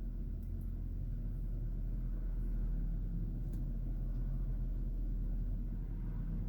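Car cabin noise while driving: a steady low engine and road rumble that grows slowly louder.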